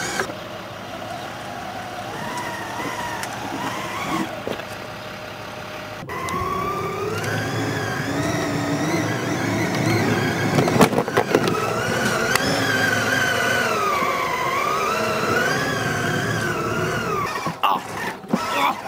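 Electric drive motor and gearbox of a child's battery-powered ride-on toy car whining as it drives. The pitch rises and falls slowly as the speed changes, and it is louder about six seconds in, with a few clicks partway through.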